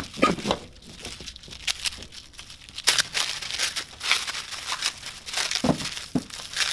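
Black plastic wrapping being torn and pulled off a metal bar by hand, crinkling irregularly, with two duller knocks near the end.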